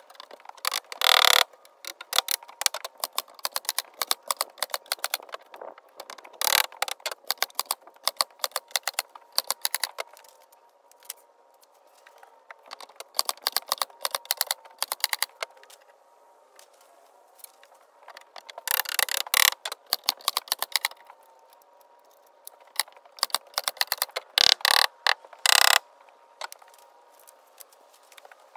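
Runs of rapid sharp clicks and clatter from hand work on the shed's wooden wall boards, in several bursts with pauses between, over a faint steady hum.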